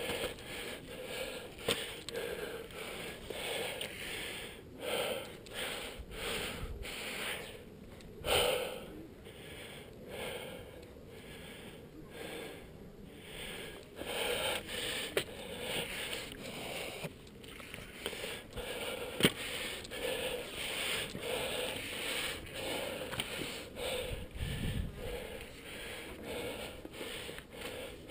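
A climber's heavy breathing from exertion: a quick, steady rhythm of breaths in and out, close to the microphone. One sharp click comes about two-thirds of the way through.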